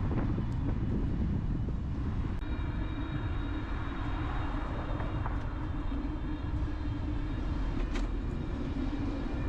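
Ride noise picked up by a bicycle-mounted camera: tyres rolling over paving and wind on the microphone. A steady whine joins about two and a half seconds in.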